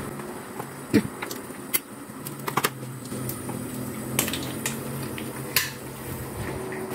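Kitchen clatter: scattered light clinks and knocks of utensils and dishes being handled, about half a dozen short strikes over a low steady hum.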